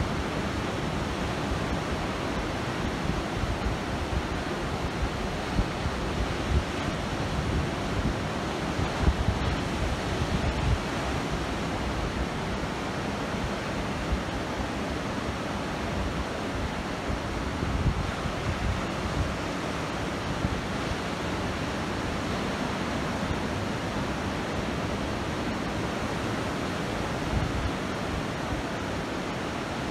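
Ocean surf breaking and washing up a sandy beach in a steady, continuous rush, with wind rumbling on the microphone.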